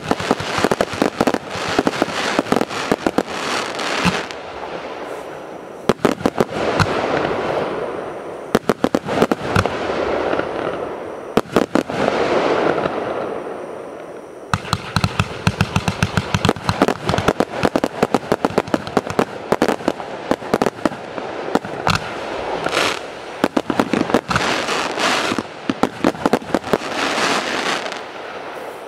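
Zena Turbofan fireworks cake firing its large-calibre shots in a fan, in repeated volleys of rapid shots with a rushing noise between volleys; the longest run of shots starts about halfway through.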